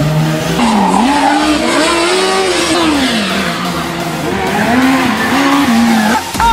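A Formula SAE race car's engine is revving up and down, its pitch rising and falling repeatedly as the car accelerates and brakes through a cone course. Tyres squeal under it.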